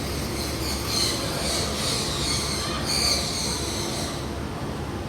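Birds calling with repeated shrill, high-pitched squeals and chirps, loudest about a second in and again about three seconds in, over a steady low background rumble.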